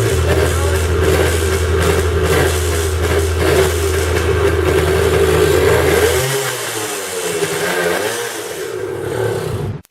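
1979 Yamaha DT175's single-cylinder two-stroke engine running with a freshly installed piston and rings and a honed cylinder. It runs steadily, then its pitch dips and rises a couple of times about two-thirds of the way in, and the sound cuts off abruptly at the end.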